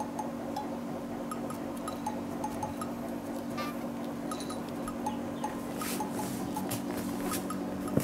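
Light, playful background music: plinking, bell-like notes over a steady low drone. A few short crackles come in during the second half, the loudest near the end.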